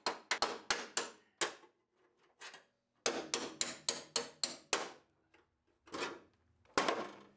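Hammer blows driving a chisel between spot-welded sheet-steel body panels to break the drilled-out spot welds loose: a quick run of sharp metal strikes, a pause of about a second and a half, a second longer run, then a few single strikes near the end.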